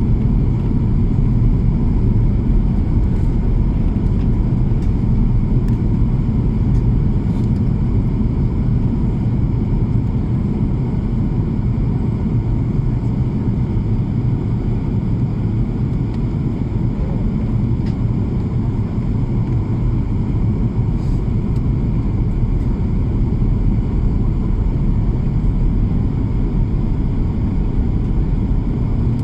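Airplane in flight: a steady, loud low rumble that holds without a break.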